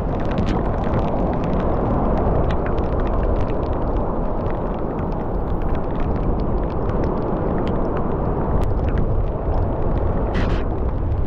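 Strong wind blowing across the microphone: a loud, steady low rumble with scattered light clicks.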